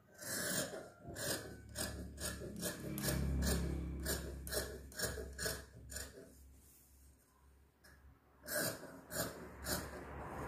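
Large dressmaker's shears cutting through dress fabric along a chalk line, a run of crisp snips about two a second as the blades close. The snipping pauses briefly about two thirds of the way through, then resumes.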